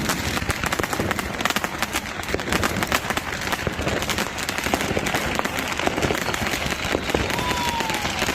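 Firecrackers and fireworks going off in a dense, rapid run of crackling pops, with a short falling whistle near the end.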